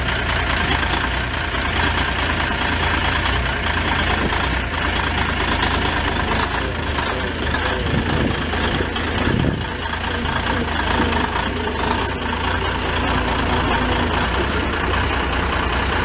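Diesel engine of an M816 6x6 military wrecker running steadily under load as it tows a small crawler tractor out of a snowbank on a chain.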